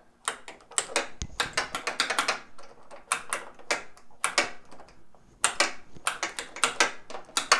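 Metal clicking and clacking from a 1973 Gottlieb High Hand pinball machine's flipper mechanism, the solenoid plunger and flipper crank worked back and forth by hand in quick irregular strokes to check the link between them for play. There is a short lull about five seconds in.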